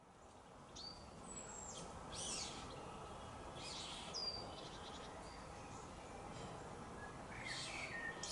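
Wild birds calling: a handful of short high whistles and chirps, some sliding down in pitch, over a faint steady outdoor background hiss that fades in at the start.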